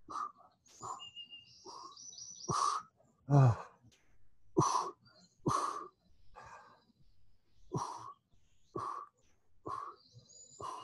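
Short, sharp breaths pushed out about once a second with each crunch rep, some with a slight grunt, while small birds chirp and whistle in the background, most clearly near the start and end.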